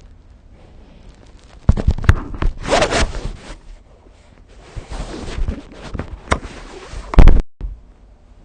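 Bedding rustling and scraping close to the phone's microphone as the sleeper shifts in bed: two loud stretches of rough noise with sharp clicks, the loudest burst just before it cuts off abruptly near the end.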